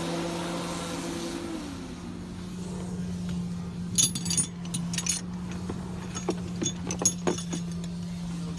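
Yamaha 242 jet boat engine running steadily with a low hum; a second, higher tone drops in pitch and dies away about a second and a half in. From about four seconds in, a run of sharp metallic clicks and rattles sounds over the engine.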